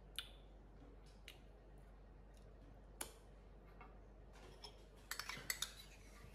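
A few faint clicks, then a quick cluster of clinks about five seconds in, as a small ceramic bowl and a metal spoon are handled and lifted off a tabletop.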